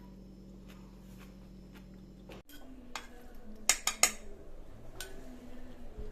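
Cutlery clinking against a dish: a few sharp clinks in quick succession past the middle, with fainter taps around them. A low steady hum stops abruptly a little before the clinks begin.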